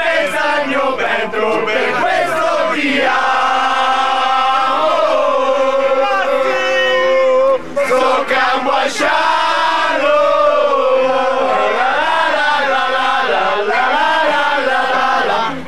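Several men singing a chant-like song together in Molise dialect, with long held notes a few seconds in and a short break near the middle.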